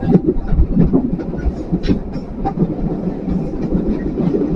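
Passenger train running on the track: a steady low rumble of wheels on rails with irregular clicks and knocks.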